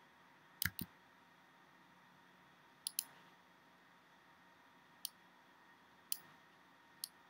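Computer mouse clicking a few times, some in quick double-click pairs, the rest single clicks a second or so apart, over quiet room tone.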